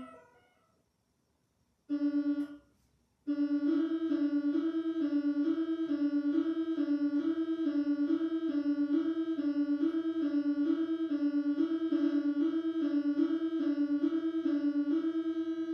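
Synthesized two-tone alert signal of a homemade mock emergency alarm: a short single tone about two seconds in, then from about three seconds a steady tone stepping back and forth between two pitches, high-low.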